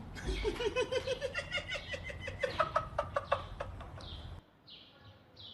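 A bird calling: a rapid run of short notes rising steadily in pitch for about four seconds, then a few short high chirps near the end.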